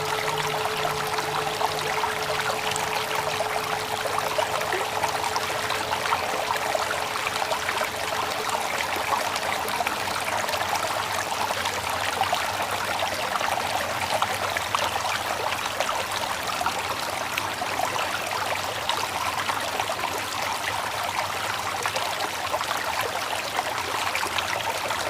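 Flowing stream water: a steady trickling, babbling rush. A lingering tone carries over at the start and fades out over the first several seconds.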